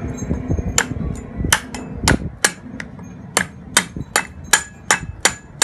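Machete blade chopping at the husk of a dry coconut, peeling it: short, sharp knocks with a slight metallic ring, about two a second, with a couple of brief pauses.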